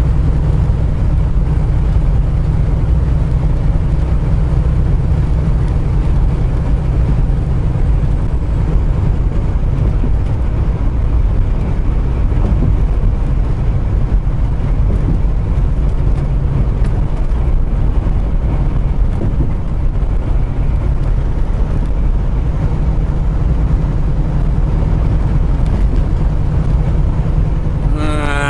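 Steady low drone of a semi truck's diesel engine and road noise, heard inside the cab while driving.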